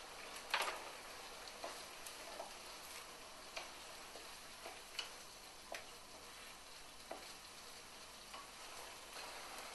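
Onions frying in a pan with a faint steady sizzle, stirred with a spatula that scrapes and knocks against the pan about once a second, hardest just after the start.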